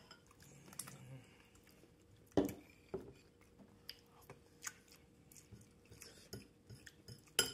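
Close-up mouth sounds of someone eating soft cooked broccoli and carrots with cheese: quiet chewing with small wet clicks. A couple of sharper knocks stand out, about two and a half seconds in and again near the end.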